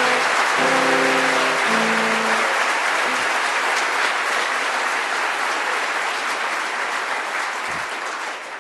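Congregation applauding loudly and steadily. Guitar accompaniment sounds its last chords of the song for the first two and a half seconds, then the applause carries on alone, tapering slightly near the end.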